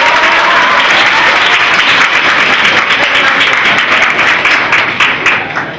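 Audience applauding: dense clapping from a roomful of people that thins out near the end.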